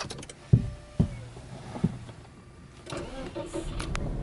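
A few dull thumps, then near the end the starter cranks the Subaru Legacy 2.0GT spec B's turbocharged 2.0-litre flat-four (boxer) engine and it catches, the start of a steady low idle.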